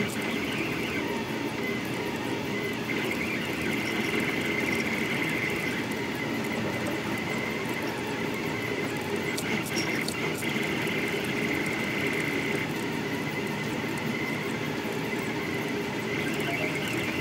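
Delta Rostock 3D printer running a fast print, its stepper motors driving the effector in quick moves: a steady whirr with a high whine that swells and fades every few seconds.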